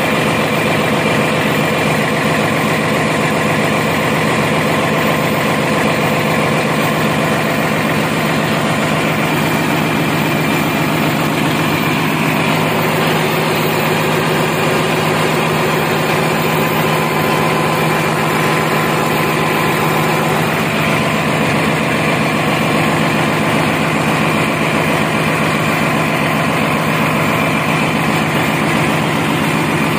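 Diesel generator engine running steadily at a constant speed, a loud, unbroken engine-room drone.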